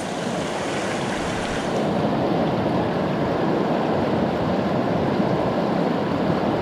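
Shallow river water rushing over rocks: a steady rush, a little louder from about two seconds in.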